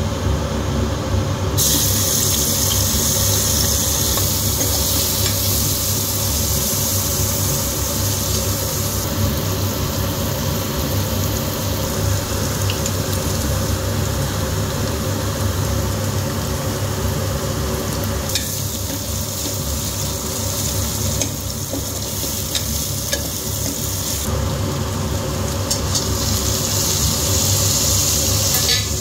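Sliced onions sizzling in hot oil: the sizzle starts about a second and a half in as they go into the pan, then runs as they fry and are stirred with a steel ladle. It is quieter for a stretch in the second half and comes back up near the end.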